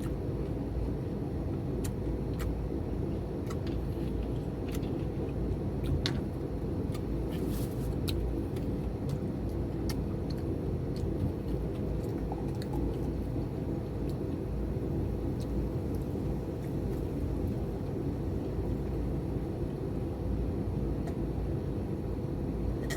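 A steady low rumble, with scattered faint clicks and taps from someone eating.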